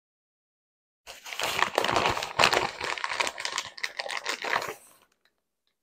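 Plastic shredded-cheese bag crinkling as it is handled and squeezed, starting about a second in and stopping shortly before the end.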